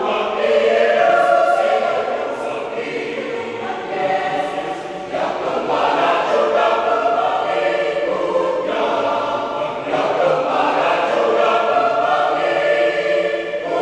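Church choir of about 21 voices singing in harmony: sustained chords in phrases, with short breaks between them.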